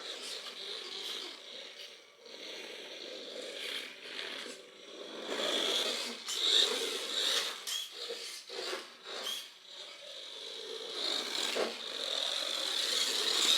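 WPL D12 remote control truck's small electric motor and gears whirring and grinding as it drives, surging and easing again and again with the throttle.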